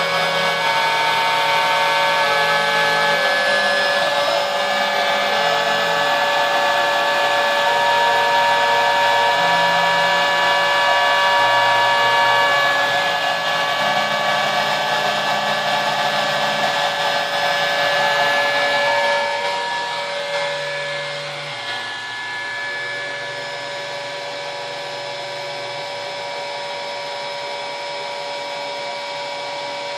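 Homebuilt CNC machine's router running steadily with a high whine as it v-carves a pine blank, under low hums that change pitch in steps every second or two as the stepper motors drive the axes. The sound eases a little about twenty seconds in.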